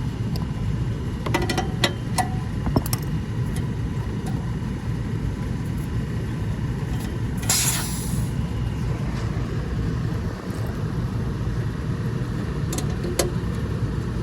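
Metal clicks and clinks of a wrench and valve fittings as the service valves of a refrigeration condensing unit are worked, over a steady low rumble, with a short hiss just past halfway.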